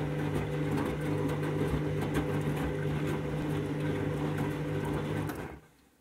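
Candy front-loading washing machine's drum motor running steadily, turning the drum during a rinse with water and laundry sloshing inside; the motor stops near the end, leaving near silence.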